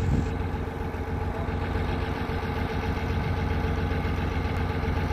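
Heavy diesel engine running steadily at a low, even hum, as from a crane or truck working at a crane assembly site.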